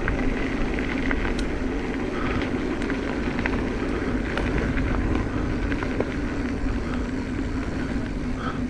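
2021 Giant Trance X 29 mountain bike rolling down a dirt trail: steady tyre and wind noise with scattered small clicks and rattles from the bike.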